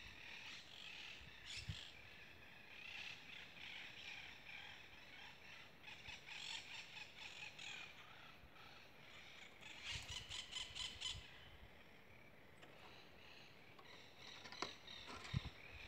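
Faint bird calls, with a quick run of repeated squawking calls about ten seconds in, and a few soft knocks.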